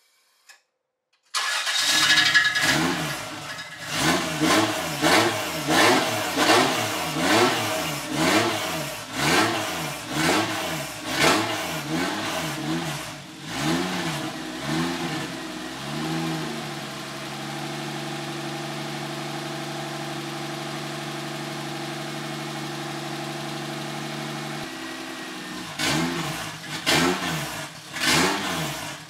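Freshly rebuilt turbocharged Toyota 2JZ inline-six (NA-T) running in a BMW E36, coming in abruptly after about a second of near silence. It is revved in quick repeated blips, about one a second, then held at a steady speed for around eight seconds, then blipped again near the end. It revs cleanly after the piston replacement, which the owner calls definitely a success.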